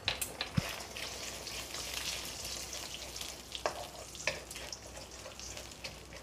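Eggs sizzling in hot oil in a wok, a steady hiss. A few sharp clicks of a spatula against the pan stand out, mostly in the second half as the eggs are scrambled.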